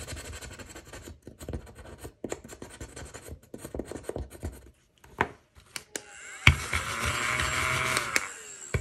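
A stylus tip scratching the coating off a scratch-off card in quick, uneven strokes, then stopping. About six and a half seconds in, a small handheld battery gadget starts and runs with a steady whir for under two seconds before cutting off.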